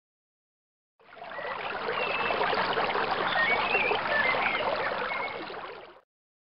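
Running water, fading in about a second in and fading out about a second before the end, with a few faint, wavering high chirps over it.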